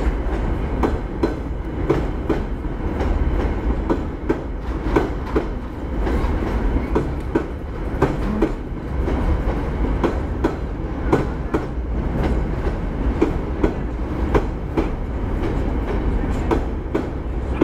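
Empty open-top coal wagons of a freight train rolling past, their wheels clacking over the rail joints in a quick, uneven run over a steady low rumble.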